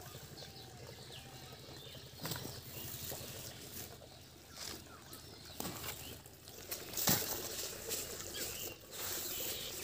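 Bare hands squeezing and slapping wet cow dung mixed with straw, with a few soft irregular thuds a second or two apart.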